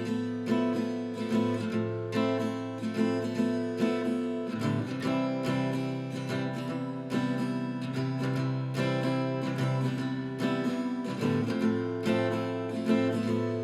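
Acoustic guitar strummed in a slow, steady rhythm as the introduction to a slow song, the chords changing a couple of times.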